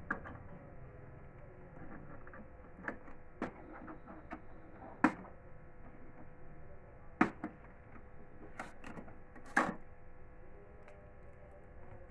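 Scattered sharp plastic clicks and knocks as an Epson M2140 printer's casing is handled and its blue packing tape pulled off. The three loudest knocks come about five, seven and nine and a half seconds in.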